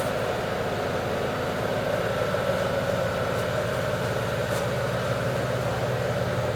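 A steady mechanical hum with a few low steady tones, even in level throughout.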